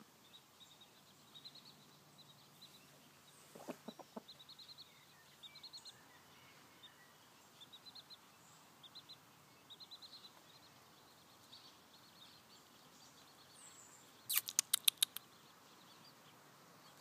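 Chicks peeping: faint, short, high cheeps in quick little runs, on and off. About fourteen seconds in, a brief run of sharp clicks is the loudest sound.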